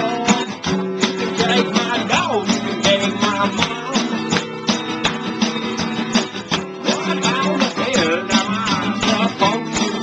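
Acoustic guitar music, strummed and plucked.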